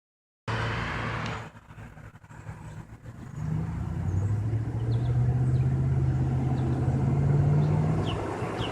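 A vehicle engine running low and steady, building up over the first few seconds, with faint short bird chirps over it.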